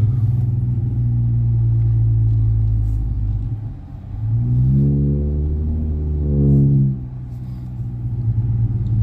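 Dodge Challenger with a MagnaFlow Magnapack exhaust, droning steadily while cruising; about four seconds in the engine note climbs as it accelerates hard, holds for two or three seconds, then falls away abruptly near seven seconds as the throttle comes off or it shifts.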